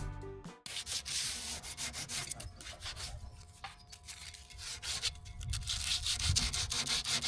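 Abrasive rubbing on wood in rapid, uneven strokes, like hand sanding. Background music cuts off about half a second in.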